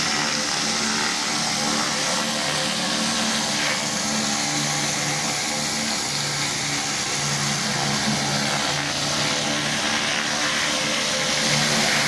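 Pressure washer running steadily, its spray giving a constant loud hiss over the engine, with background music carrying low bass notes that come and go.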